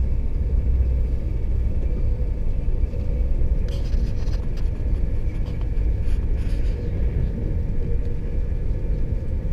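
Steady low rumble of an InterCity 225 Mark 4 passenger coach running at speed on the rails behind a Class 91 electric locomotive, heard from inside the saloon, with a faint steady hum. Brief higher hissing clatters come about four seconds in and again about six seconds in.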